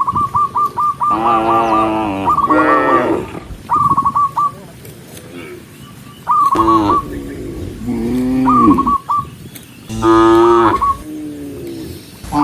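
Cattle mooing, about six separate moos one after another from several cows. A quick run of short, high bird chirps sounds during the first second.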